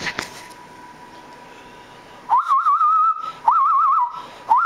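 Bird-like hand whistle, blown across the knuckles of cupped hands. Starting about two seconds in, it gives three calls about a second each: the first swoops up into a wavering note, and the next two warble in a fast trill.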